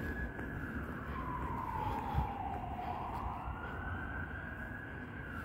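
A siren wailing, its pitch slowly falling and rising again about once every four to five seconds.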